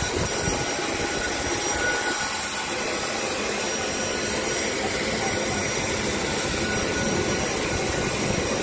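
Steady jet-airliner noise on the ramp: a high, even whistle above a continuous rushing hiss, with no change in pitch or level.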